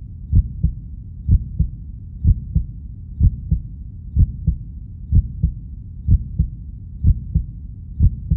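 Heartbeat sound effect: slow, evenly paired low thumps (lub-dub) a little under once a second, about nine beats in all, over a low steady hum.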